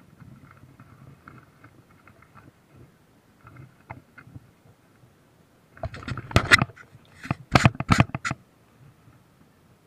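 Water splashing and sloshing right at the camera: a run of loud, sharp splashes about six to eight seconds in, after a few seconds of faint low rumbling.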